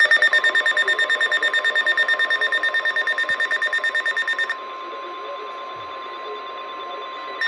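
NOAA Weather Radio warning alarm: a steady single tone of about 1050 Hz, signalling that a new warning is about to be read. A rapid electronic alarm beeping of about ten pulses a second sounds over it, stops about four and a half seconds in, and starts again near the end.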